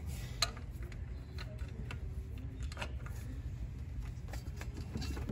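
Hands working a serpentine drive belt over the engine pulleys: a few faint, scattered clicks and rubbing over a steady low background hum.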